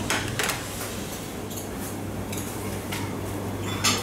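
Restaurant kitchen background: a steady low hum, with a few sharp clinks of plates and utensils just after the start and near the end.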